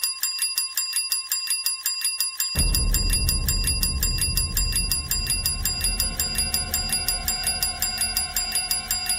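Preview music bed: a fast, evenly spaced, bell-like ticking rhythm over steady high ringing tones, with a deep bass pulse coming in after about two and a half seconds.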